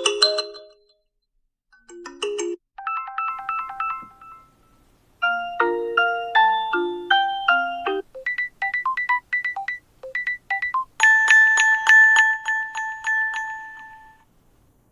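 Samsung Galaxy A27's speaker playing short previews of its built-in ringtones one after another: about six different chiming electronic melodies, each stopping when the next one starts as ringtones are tapped in the list.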